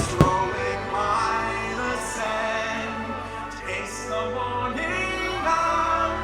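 Fireworks show soundtrack: orchestral music with singing. A single sharp firework bang comes just after the start.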